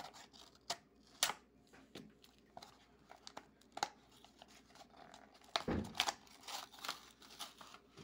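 A small pocketknife cutting and prying at a stiff plastic blister pack and its cardboard backing: scattered sharp clicks and snaps of the plastic, with crinkling and tearing of the card.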